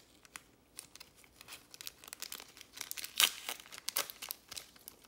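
Foil trading-card pack wrapper crinkling and crackling as it is worked open and the cards are slid out, in irregular bursts with a louder crackle about three seconds in.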